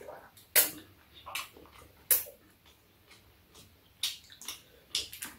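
Udon noodles being slurped from a bowl: four short, wet slurps a second or two apart, with quieter mouth sounds between.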